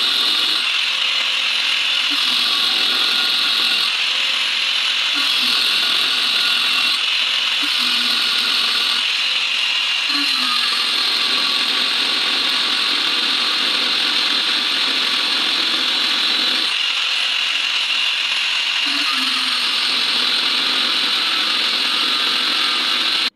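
Continuous mechanical rattling and whirring, like a ratchet or gear mechanism, changing in character every couple of seconds. It cuts off suddenly at the end.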